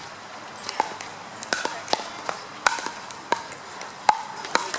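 Pickleball paddles hitting a hollow plastic pickleball in a rally: sharp pops, about eight in under five seconds, at an uneven pace.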